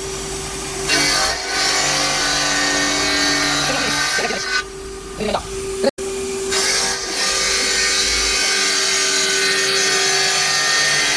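A 5-axis CNC bridge saw cutting a stone countertop slab: a steady machine hum with a constant tone under a hissing cutting noise. It dips briefly a little before the middle, then breaks off abruptly for an instant near the middle.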